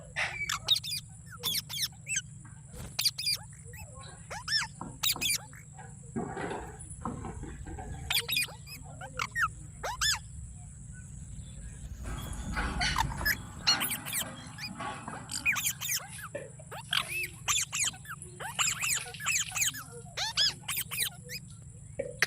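Green parrot calling: many short, sharp chirps and squawks, some in quick clusters, coming irregularly. A rougher, noisier stretch of calling comes around the middle.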